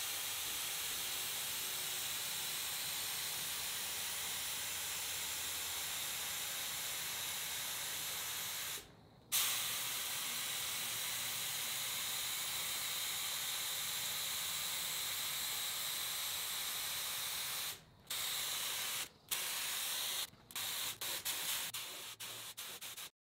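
Gravity-feed air spray gun hissing as it sprays clear coat. There are two long steady passes of about nine seconds each with a brief stop between, then trigger bursts of about a second each that grow shorter, ending in quick short spurts.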